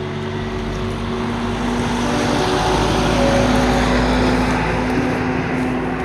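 Road vehicle passing by; its noise swells to a peak about halfway through and then fades.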